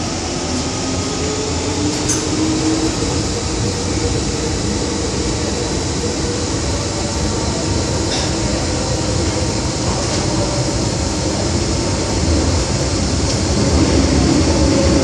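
MTR M-Train electric multiple unit heard from inside the carriage, running and picking up speed: steady wheel and running noise under a faint rising traction-motor whine, growing gradually louder.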